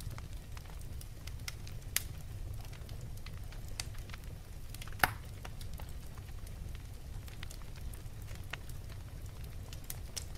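Wood fire crackling in a fireplace: a low steady rumble with scattered sharp pops, the loudest about two and five seconds in.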